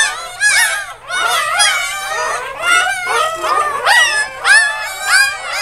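A litter of newborn Scottish Deerhound puppies crying and squealing together, many high-pitched calls overlapping without a break.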